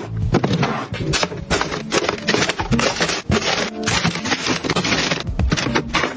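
Objects being handled and sorted: a dense, continuous run of crackles, scrapes and quick clicks.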